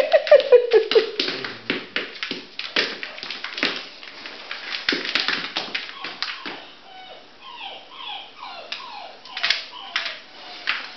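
Springer spaniel puppy's claws clicking and scrabbling on a tiled floor as it scampers about, with a run of short, high whimpers, each falling in pitch, a little past the middle.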